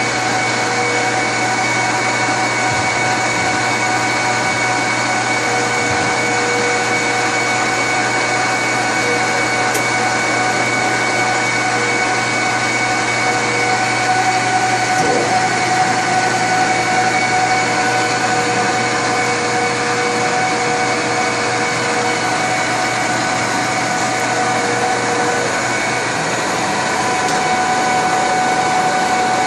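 Rogi WM460Ax1000 heavy industrial lathe running steadily: a constant mechanical whine made of several held tones over a hiss. One of the tones drops out and returns a few times.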